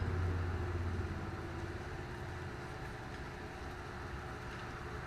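A steady low mechanical hum, a little louder in the first second or so, then settling to an even level.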